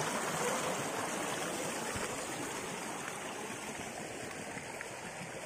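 Shallow rocky stream running over stones: a steady rushing hiss of water that slowly grows quieter.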